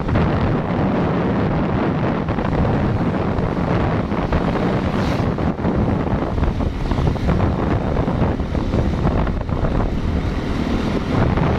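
Steady wind rumble on a phone's microphone from travelling along a road, with the vehicle's running noise underneath.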